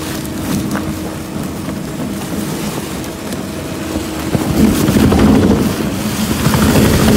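Model 760 plastic film shredder running with a steady hum while it tears up plastic film in its hopper. About four and a half seconds in, the sound grows louder and rougher as the cutters work through the film.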